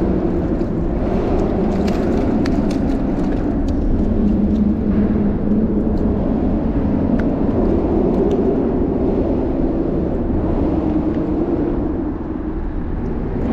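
Steady rumble of traffic crossing the bridge overhead, with a few light clicks and taps in the first few seconds.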